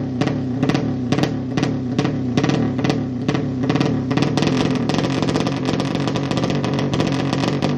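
A 200cc drag-bike engine held on the throttle at the start line, running in a fast, regular stutter that quickens about four seconds in.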